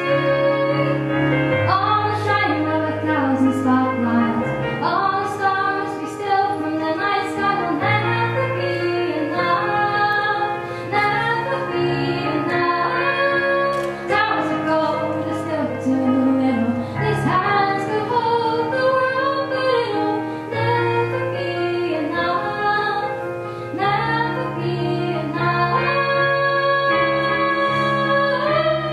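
A young female voice singing a song, accompanied on a Yamaha CP stage piano.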